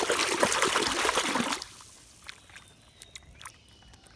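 Pond water splashing and sloshing as a hand swishes a mud-caked toy bus through it to wash it. The splashing is loud for about the first second and a half, then drops to faint trickles and drips.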